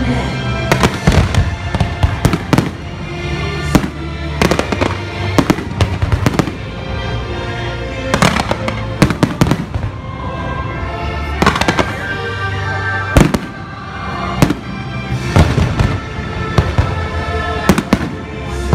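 Aerial firework shells bursting in repeated sharp bangs, often several in quick succession, over music playing throughout.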